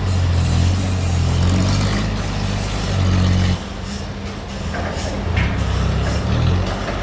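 Sawmill bandsaw machinery running with a steady low hum that drops off abruptly about halfway through, then partly returns.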